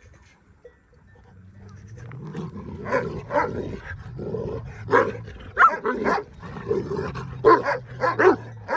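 Shepherd dogs squaring off: a low, steady growl builds about two seconds in, with a run of loud barks over it. The dogs are close to a fight.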